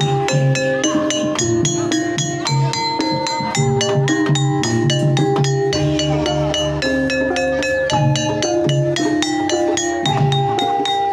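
Banyumasan tayub music: tuned mallet percussion plays a fast, dense run of ringing notes over kendang drum strokes.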